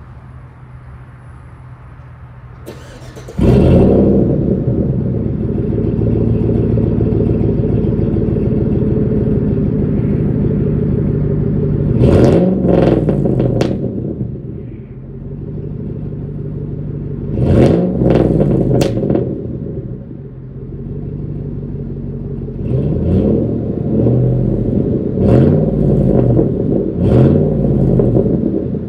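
Chevrolet 4.8-litre V8 of a 2008 Silverado with its muffler deleted, starting up about three seconds in and then running loud and deep. It is revved in quick throttle blips several times, each rising and falling back to idle.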